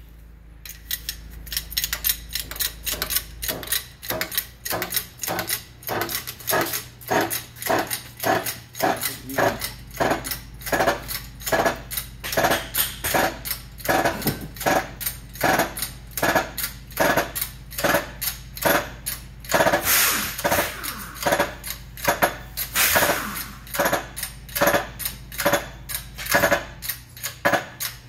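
Hand-lever hydraulic shop press being pumped, a sharp click or knock with each stroke at about two a second over a low steady hum, as it pushes the lower bearing onto the rotor shaft of a Flygt 3152 submersible pump.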